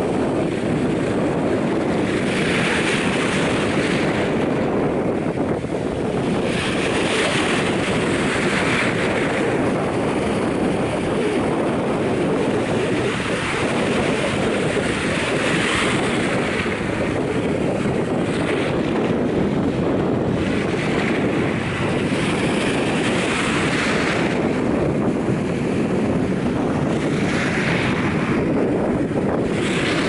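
Small ocean waves washing over a shallow sandy shore, with steady wind buffeting the microphone. A brighter hiss of surf swells up every few seconds.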